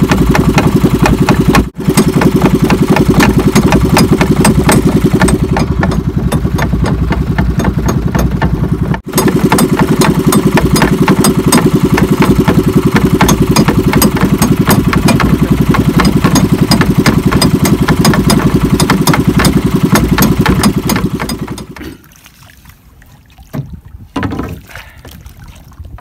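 Small inboard engine of a motorized outrigger boat (bangka) running steadily under way, with a fast, even firing rhythm and two very short breaks. Near the end the engine sound stops, leaving only faint water sounds.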